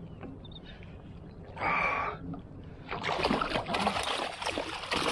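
Hooked Spanish mackerel thrashing and splashing at the water's surface beside a kayak, starting about three seconds in and running on. A brief high squeal sounds just before, about two seconds in.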